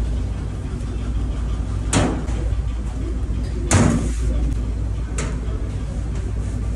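Three sharp knocks on a steel worktable as paratha dough is kneaded and worked with a wooden rolling pin, the loudest a little past the middle, over a steady low hum.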